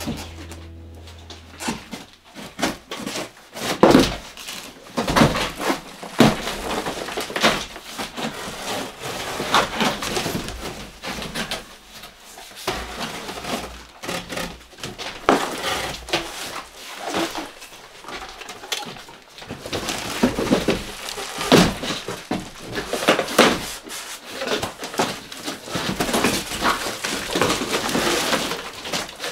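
Large cardboard boxes being moved around by hand on a wooden floor: irregular scraping and rustling of cardboard with scattered thumps.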